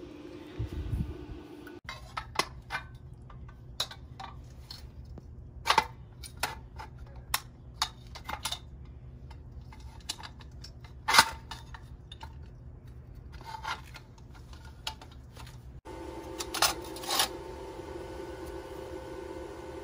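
Steel pieces and bolts of a homemade drill and angle grinder stand being handled, with irregular sharp metallic clinks and knocks; the loudest knock comes about eleven seconds in.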